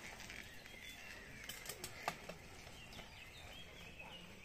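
Woodland birds chirping and singing over faint outdoor background noise, with a few sharp clicks about one and a half to two seconds in.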